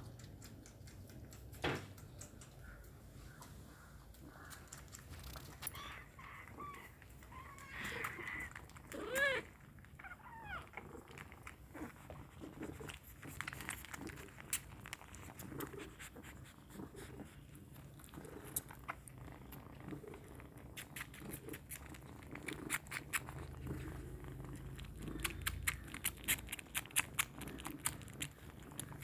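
Kittens suckling milk: a stream of small wet clicks, growing denser and louder near the end, with a few brief high cries about a third of the way in.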